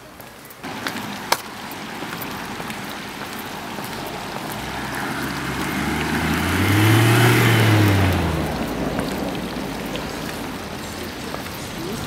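A motor vehicle passing by: its engine and road noise swell to a peak about seven seconds in and then fade, the engine note rising and falling as it goes past. A single sharp click comes a little over a second in.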